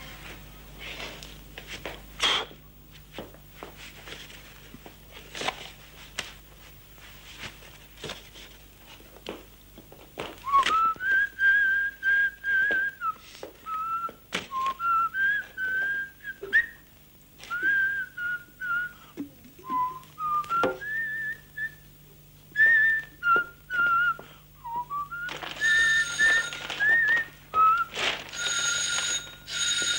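A man whistling a meandering tune through his lips, short notes with slides up and down, starting about ten seconds in. Before that there are soft knocks and rustling of cloth and objects being handled.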